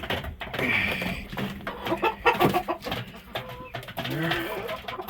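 Chickens in a crowded coop clucking and calling, with several overlapping short calls.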